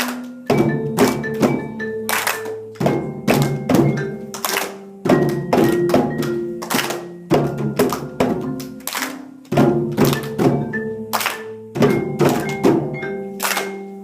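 Music played on pitched percussion: sharp, thudding strikes of short tuned notes in a steady, repeating pattern.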